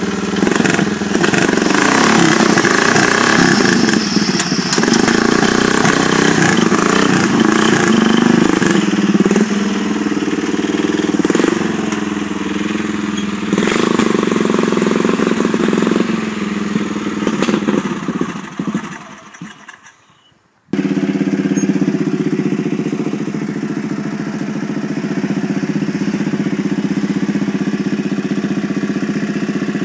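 Small engine of a lifted riding-mower mud buggy running under load, its revs rising and falling as it drives through tall grass. About two-thirds in the sound fades away, then comes back suddenly as a steadier, even engine note.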